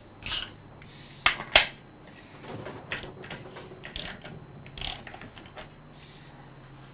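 A wrench working the crankshaft gland nut to back off the seal-pressing tool on a VW Type 1 engine case, giving irregular metallic clicks and clinks. The two loudest come about a second and a half in, and fainter ones are scattered over the next few seconds.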